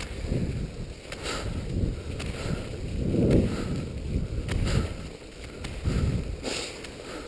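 Skate skis swishing and pushing over packed snow, with a run of short sharp clicks from the ski poles planting roughly every half second to second.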